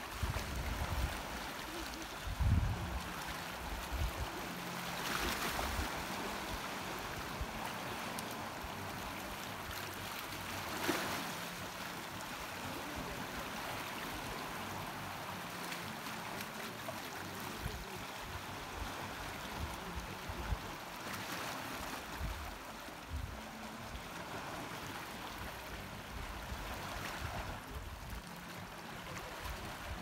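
Small sea waves lapping and washing over a rocky shallow shoreline, swelling into a louder wash every several seconds, with low rumbles of wind on the microphone.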